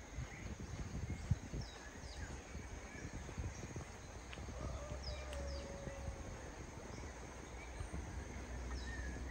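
Outdoor rural ambience: birds chirping here and there, with a longer falling call about five seconds in, over a steady thin high whine and a low rumble of wind on the microphone.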